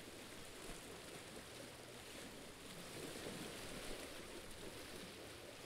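Faint, steady seaside ambience: calm sea water washing gently at a rocky shore, swelling slightly about three seconds in.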